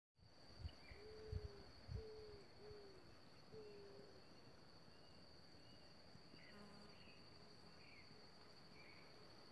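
Faint animal sounds: four short, low hooting calls in the first four seconds, each dropping in pitch at the end, over a steady high-pitched insect drone. A few soft thumps come near the start, and faint high chirps come later.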